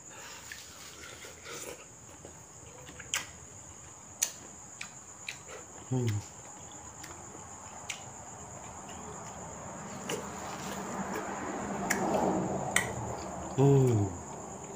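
Steady high chirring of crickets, with scattered light clicks and taps as mango slices are handled in a plastic bowl and eaten. Two short falling-pitch voice sounds, like brief hums, come about six seconds in and near the end and are the loudest things heard.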